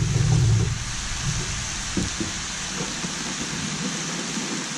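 Diced pork and onions sizzling steadily in a cast iron disco wok over a propane burner. A low rumble is heard for the first second and then stops, and there are a couple of faint clicks about two seconds in.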